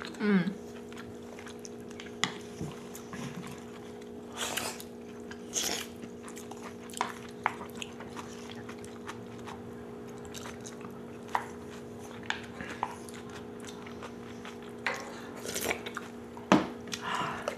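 Close-up eating sounds of kimchi stew: chewing and spoonfuls being taken, with scattered clicks of metal spoons against the tray. A steady low hum runs underneath.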